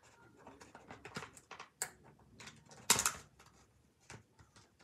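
Plastic and cardboard toy packaging being handled: a run of small irregular clicks and crinkles, with one louder crackle about three seconds in.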